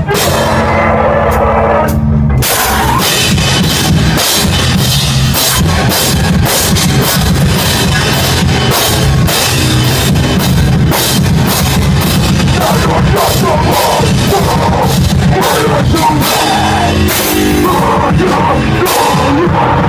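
Heavy hardcore band playing live at full volume: guitar, bass and a drum kit with dense cymbal hits. A held low note for the first two seconds breaks off briefly, then the full band comes in and drives on.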